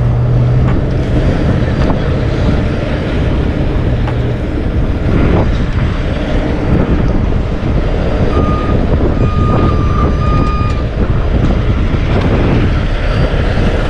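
Heavy diesel truck engine running, with a strong steady low hum for the first four seconds. A backup alarm beeps a few times between about eight and eleven seconds in.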